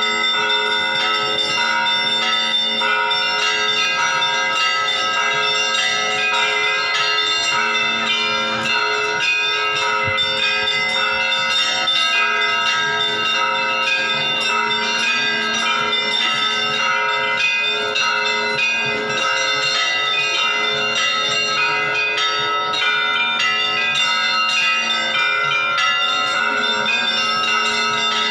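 Church bells ringing: many bells of different pitches struck in quick succession without a break, their tones ringing on and overlapping.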